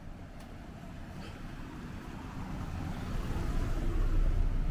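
A car driving past close by on a narrow street, its low rumble growing louder to a peak near the end and then easing a little.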